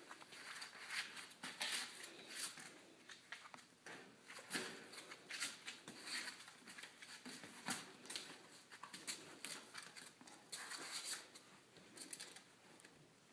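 Puppies scuffling and wrestling on a fabric mat: faint, irregular scratching and scuffing of paws and claws, with scattered soft clicks and taps.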